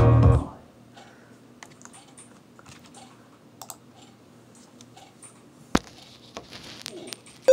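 Speaker music cuts off shortly after the start, leaving a quiet stretch with a faint steady low hum and scattered small clicks and taps. One sharp click comes a little before six seconds in.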